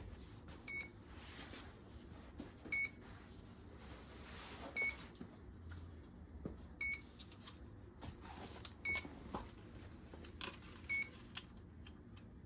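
The RC boat's electronic speed controller beeping after power-up: a short high beep about every two seconds, six times, typical of an ESC waiting for a signal from a transmitter that is still switched off. A few faint handling clicks near the end.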